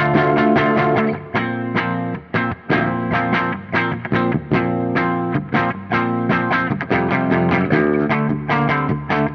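Electric guitar played through a Soldano SLO100 clone tube amplifier with a distorted tone, a riff of quickly picked notes and held chords, several attacks a second.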